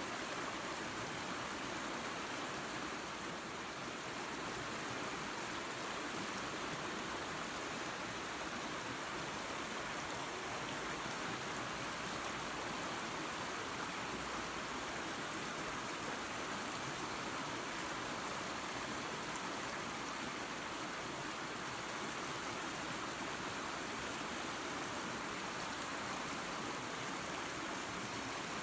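Waterfall and creek water running with an even, steady rush.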